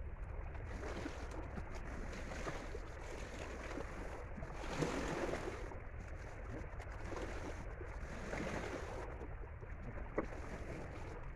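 Wind rumbling steadily on the microphone over water washing against rocks, with a louder rush about five seconds in and a single sharp click near the end.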